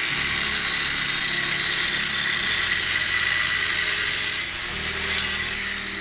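A handheld electric grinder working on steel sheet metal: a steady high whine under a harsh, hissing rasp, easing slightly near the end.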